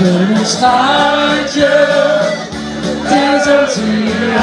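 A woman singing into a microphone over amplified dance music with a steady beat, holding long notes.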